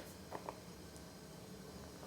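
Faint handling sounds as a small cardboard box is opened by hand: two soft clicks close together about half a second in and a faint tick a little later, over a low steady room hum.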